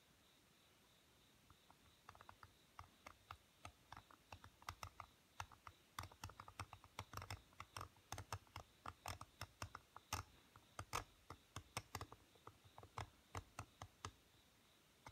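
Seal-carving knife cutting and chipping into the face of a stone seal: faint, irregular crisp clicks and scratches, several a second, starting about two seconds in and stopping shortly before the end.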